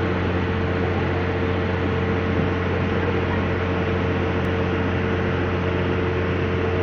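Steady machinery hum: a constant low drone with a fixed higher tone over an even rushing noise, not changing in pitch or level.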